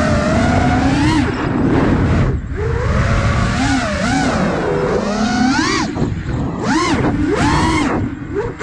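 Motors of an iFlight Nazgul Evoque F5 5-inch FPV quadcopter whining, their pitch swooping up and down with the throttle, over wind rush. The sound drops away briefly about two seconds in and again near the end, as the throttle is cut.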